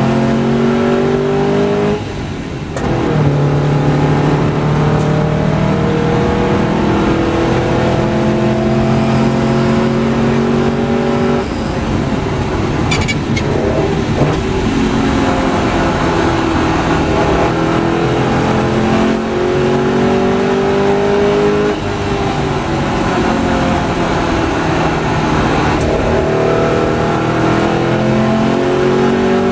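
Porsche 550 Spyder's air-cooled flat-four heard from the open cockpit, revving up through the gears with its pitch rising and falling back at each shift. It eases off for a corner past the middle, then pulls hard again, with wind and road noise underneath.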